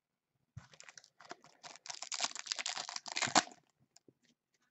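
Clear plastic wrapper of a trading card pack crinkling and crackling as it is handled. The crackling is densest for about a second and a half in the middle, then thins to a few scattered ticks.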